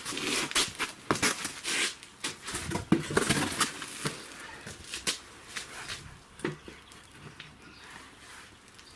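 Irregular metallic clicks, knocks and scraping as a car's front lower control arm is wiggled and worked into position. The sounds are busiest for the first five seconds or so, then thin out.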